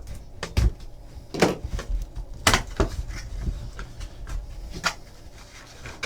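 Cardboard trading-card boxes and packaging being handled on a table: a scattered series of knocks, taps and light rubbing as boxes are opened and set down.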